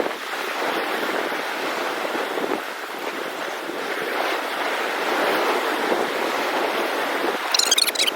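Sea swell and surf washing below, in gentle surges, with wind buffeting the microphone. A brief crackle near the end.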